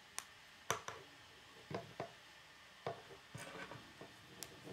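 Plastic K'nex rods and connectors clicking as they are snapped together and handled: a series of sharp, irregular clicks, with a short patch of light plastic rattling near the end.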